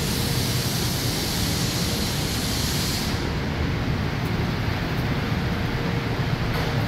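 Steady factory-floor din of fans and machinery, with a faint steady hum underneath. A high hiss over it stops abruptly about three seconds in.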